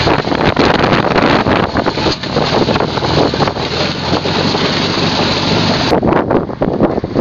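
Dune buggy engine running while under way, mixed with heavy wind buffeting the microphone. About six seconds in, the sound cuts abruptly to wind on the microphone.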